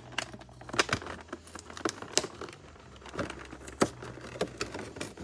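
Cardboard box of a Pokémon trading-card battle deck being handled and opened at the top: irregular sharp clicks and crinkles of card packaging.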